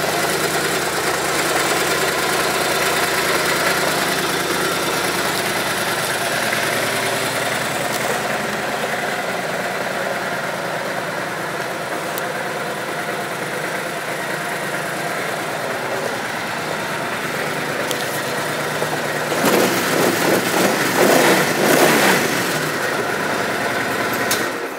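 A 2006 Suzuki C90T Boulevard's V-twin engine idling steadily. About twenty seconds in it is revved a few times, then it is switched off just before the end.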